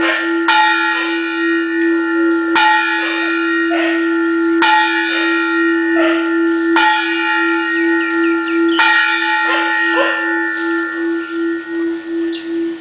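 Large Thai temple bell struck about every two seconds, five strokes, each ringing on in several steady tones. Its deep hum pulses slowly and keeps sounding after the last stroke. A dog howls in rising and falling wails between the strokes, set off by the bell.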